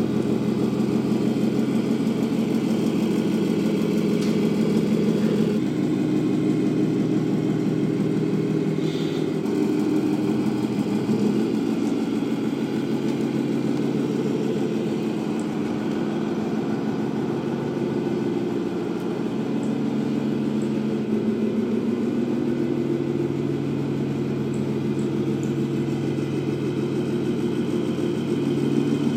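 Electronic sound module of a 1/14 Tamiya Scania RC truck playing a simulated truck diesel engine through its speaker. The engine note runs steadily and shifts up and down in pitch several times as the truck is driven.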